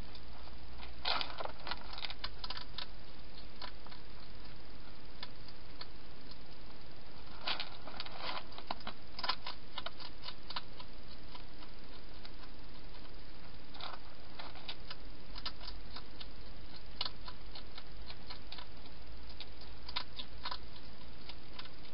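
A hedgehog crunching dry food at bowls inside a plastic feeding box: clusters of sharp clicks and crackles every few seconds over a steady hiss from the camera.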